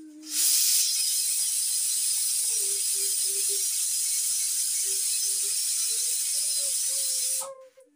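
Pressure cooker venting steam through its weight valve: a loud, steady hiss that starts abruptly under a second in and cuts off sharply about seven seconds later. This is the release a cooker gives when it has come up to full pressure.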